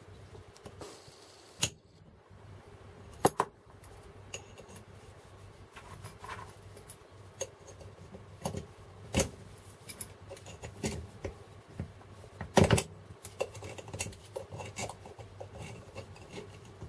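Two small screwdrivers clicking and scraping against the steel retaining ring and sleeve inside a Hilti core drill chuck adapter as the ring is worked out. Irregular light metallic clicks, with a few sharper ones, the loudest about three-quarters of the way through.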